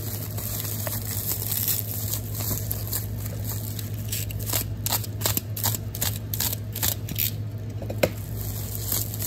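Plastic bubble wrap crinkling and being cut and torn open with a utility knife to free a taped pack of trading cards. A quick run of short scratchy strokes in the middle and a single sharp click near the end.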